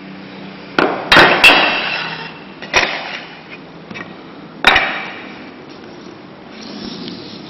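Stainless steel shower door handle being knocked, five sharp metallic knocks with a brief ring after each; the loudest two come about a second in, the others near three and five seconds.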